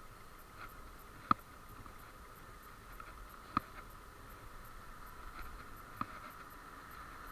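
Faint, steady whine of a Zappy electric scooter's motor while riding, with a sharp click about every two and a half seconds, three times in all.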